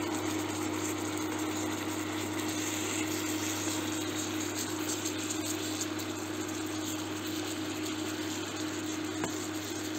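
Chicken pieces frying in hot oil in a non-stick frying pan, a steady sizzle over an even low hum.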